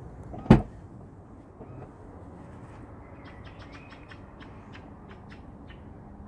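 Renault Koleos tailgate latch releasing with one sharp, heavy clunk about half a second in, as the tailgate is opened. A few seconds later comes a quick run of about a dozen short, sharp high-pitched ticks.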